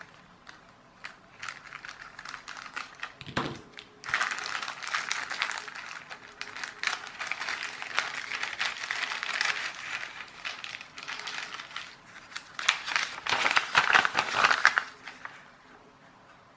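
Clear plastic bag crinkling and rustling irregularly as it is handled and its contents taken out, with small crackles throughout, growing busier after a few seconds. The loudest rustling comes near the end, as a folded paper sheet is handled, then it dies away.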